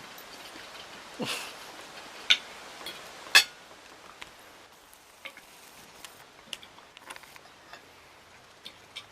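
A dog licking at a window pane: scattered clicks and taps on the glass, with a few louder knocks in the first few seconds and lighter, irregular ticks after.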